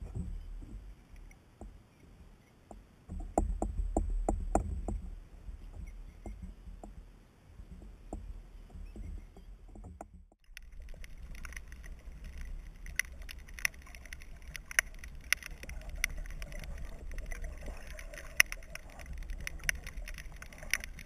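Water sloshing and splashing close to the microphone, loudest a few seconds in. Just after ten seconds the sound changes abruptly to the muffled sound of a submerged action camera underwater, with steady fine crackling and clicking.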